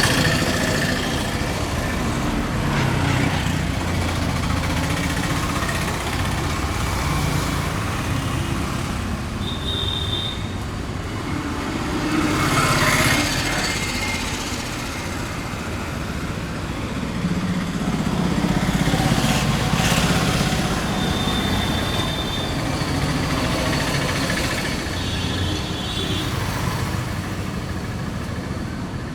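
Street traffic noise: motor vehicles running and passing, swelling louder twice. A few short high beeps come through, about ten seconds in and twice more in the latter half.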